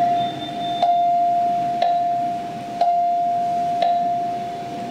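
Music from the video playing on a YG-300 mini LED projector: a single high note held steadily and re-struck about once a second, growing slowly quieter, over a faint hiss.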